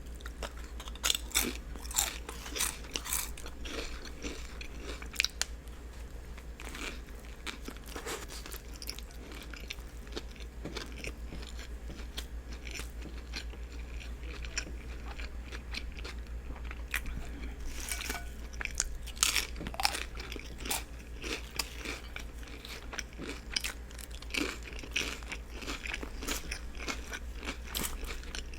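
Close-up biting and chewing of a turkey and cheese sub with lettuce, tomatoes and onions: repeated crunchy bites and wet chewing, in bunches, over a steady low hum.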